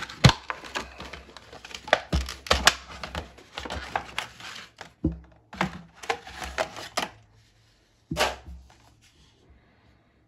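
Stiff clear plastic clamshell packaging crackling and clicking as it is handled and pulled off a metal collector tin, with a single sharper knock about eight seconds in.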